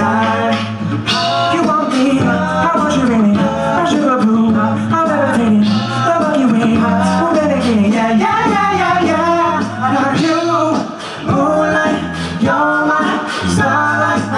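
Male a cappella group singing through microphones: a lead voice moves over sustained backing harmonies and a sung bass line, with sharp percussive hits keeping the beat.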